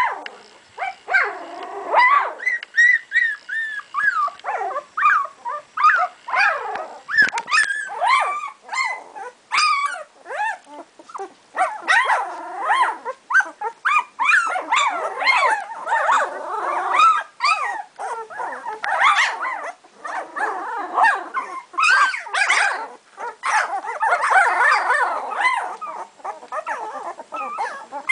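A litter of two-week-old puppies whining and yelping, many short, high cries overlapping one another without a pause.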